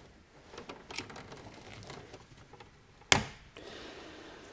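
Gloved hands handling a double-pole circuit breaker and its stranded wires: faint rustling and light clicks, with one sharp click about three seconds in.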